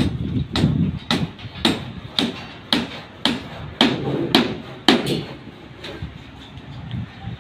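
Hammer striking over and over, about two blows a second, each a sharp knock with a short ring; the blows grow fainter after about five seconds.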